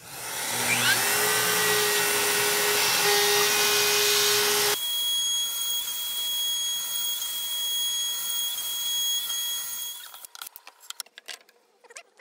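StepCraft CNC router's spindle starting with a rising whine and cutting MDF, with a shop vacuum running at the bit and a steady high whine throughout. The noise drops abruptly about five seconds in and stops near ten seconds, followed by a few light knocks as the cut pieces are handled.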